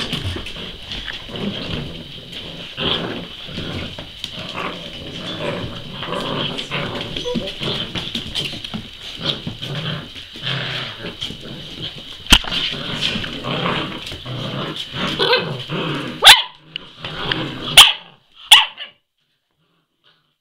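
Seven-week-old Entlebucher Mountain Dog puppies barking and growling as they play-fight, with a few sharp knocks in the second half; the sound cuts off suddenly about nineteen seconds in.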